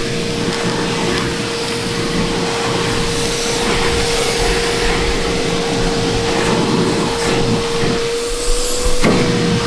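A small electric motor running steadily, a constant whine over a hiss, with a sharp click about nine seconds in.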